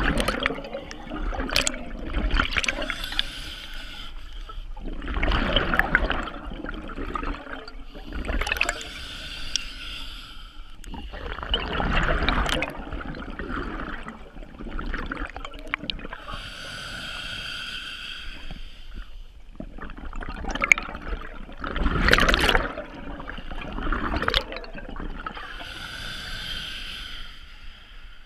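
Scuba diver breathing through a regulator underwater: a hiss with each inhale and a bubbling rush with each exhale, repeating about every three to four seconds.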